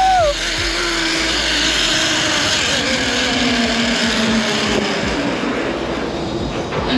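Zipline trolley running along the steel cable at speed, a continuous rushing hiss with a faint whine that slides slowly down in pitch.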